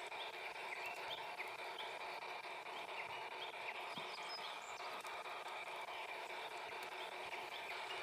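LGB G-gauge model locomotive running steadily along garden track, heard from on board: a steady motor and wheel hum. Short high chirps repeat over it every half second or so.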